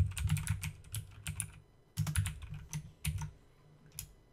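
Typing on a computer keyboard: quick runs of keystrokes that stop about three seconds in, then a single click near the end.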